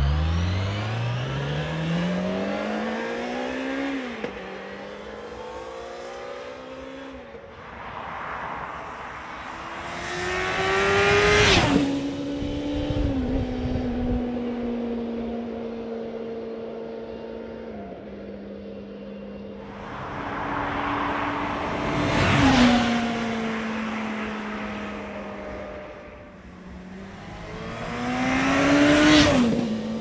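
A 2007 Yamaha FZ6 Fazer S2's inline-four engine, on its stock exhaust with the catalytic converter removed. It first pulls away through the gears, the note climbing and dropping at each upshift. Then it passes close by three times, loudest as it goes past, where the pitch falls sharply.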